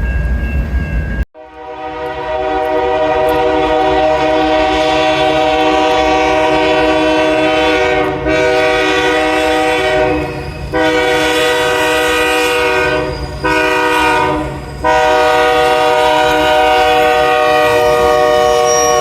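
A GE freight locomotive's multi-chime air horn sounding a chord in a series of blasts with brief breaks: a long first blast, then shorter ones, the fourth the shortest, and a final long one. Under the horn runs the steady rumble of the passing train.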